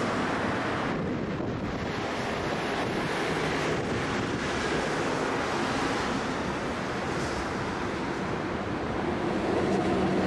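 A freight train hauled by a Shaoshan 3 electric locomotive approaching, heard as a steady rushing rumble. The sound grows near the end as the locomotive draws level, with a few steady hums appearing.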